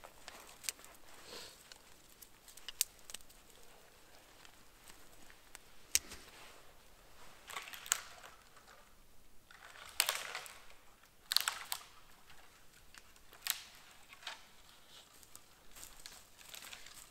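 Small campfire of burning twigs crackling, with scattered sharp pops and snaps a second or two apart, a few louder ones around the middle.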